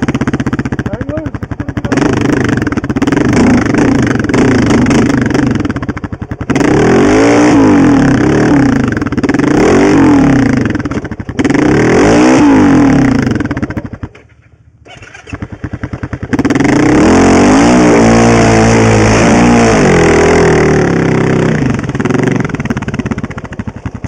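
Honda TRX700XX sport quad's single-cylinder engine revving hard in repeated bursts, its pitch rising and falling with the throttle. About fourteen seconds in it drops almost to idle, then is held at high revs for several seconds before easing off near the end.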